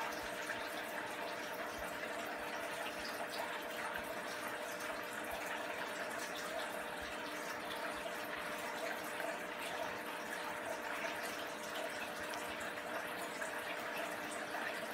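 Steady running-water noise with a steady hum underneath.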